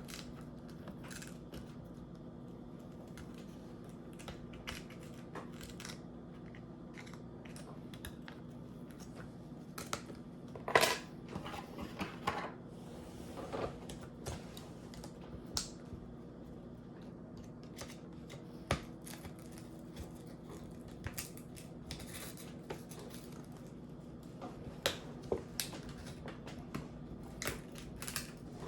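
Scattered small clicks and taps of tools and laptop parts being handled during a MacBook Pro teardown, with a louder clatter about eleven seconds in, over a steady low hum.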